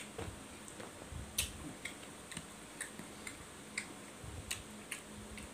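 A person chewing a mouthful of biryani rice with the mouth working openly, making irregular wet clicks and lip smacks at about two a second, with a few soft low thuds.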